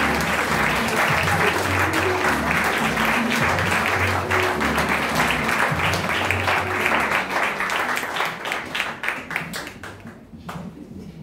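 Theatre audience and cast applauding over music with a low bass line; after about eight seconds the clapping thins to scattered single claps and dies away.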